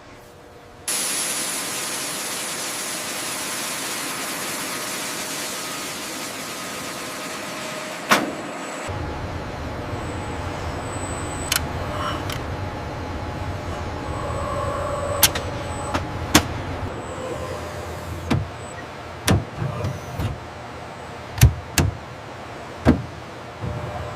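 Workshop machinery noise: a steady hiss for several seconds, then a low hum broken by a dozen or so sharp knocks and clicks, more frequent near the end.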